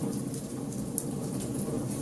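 Wood fire burning in a fireplace: a steady low rumble of flames with scattered sharp crackles and pops, the loudest pop about a second in.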